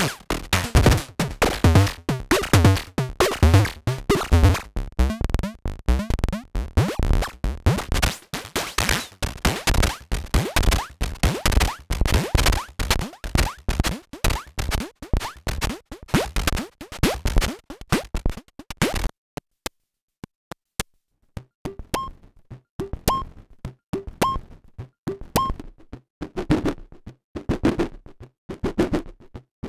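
Moog DFAM analog percussion synthesizer playing a fast sequenced pattern of percussive hits. About 19 seconds in it thins to sparse pitched blips, about one a second.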